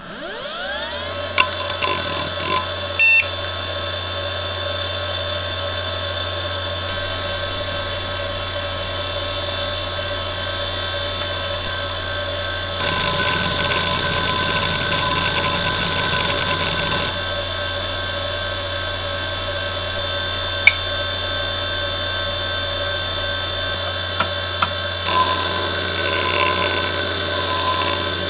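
A Fujitsu MPB3021AT 5400 rpm IDE hard drive spins up with a rising whine and a few clicks, then runs with a steady whine. Its heads seek with a rough rattling chatter about 13 to 17 seconds in, during a random-access benchmark, and again near the end.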